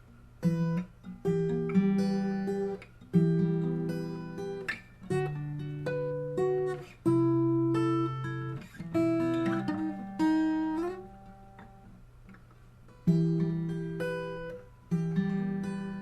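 Acoustic guitar fingerpicked: a bass string and a treble string plucked together, then an arpeggio over the upper strings, repeated through the chord changes, with a short pause about two-thirds of the way through.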